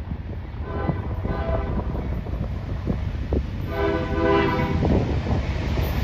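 Diesel freight locomotive's air horn sounding twice, a short blast about a second in and a longer one around four seconds in, over the low rumble of the approaching freight train.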